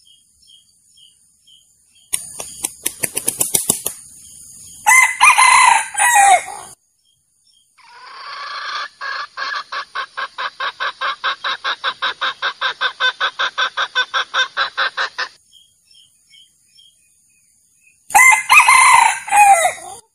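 Male junglefowl calling: a quick burst of wing-flapping followed by a loud crow, then a long run of rapid clucks at about five a second, and a second crow near the end. It is a trapping lure call for wild cocks.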